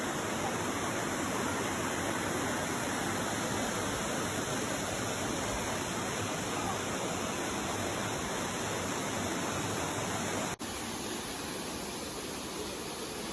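Rushing water of a waterfall, a steady dense hiss. About ten seconds in it cuts off abruptly and gives way to a slightly quieter rush.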